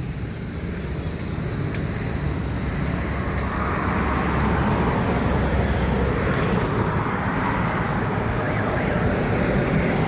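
Street traffic: a motor vehicle's engine and tyre noise growing louder about four seconds in and carrying on over a steady low rumble.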